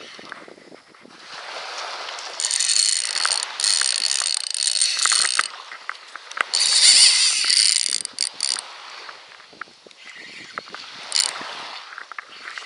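Shimano Saragosa 5000 SW spinning reel's drag buzzing as line is pulled off by a hooked barracuda, in two runs of a few seconds each, with lighter clicks of the reel between them.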